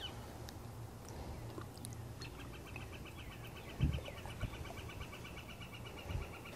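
A bird's fast, even trill of rapidly repeated notes, starting about two seconds in and lasting about four seconds, over a steady low rumble, with one dull thump midway.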